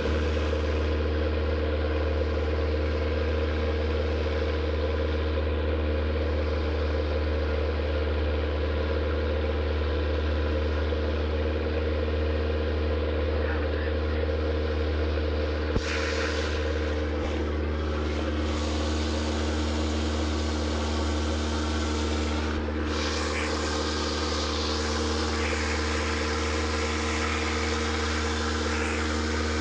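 Long-tail boat's engine running steadily under way, heard from aboard: one even drone that holds its pitch, with a steady hiss above it.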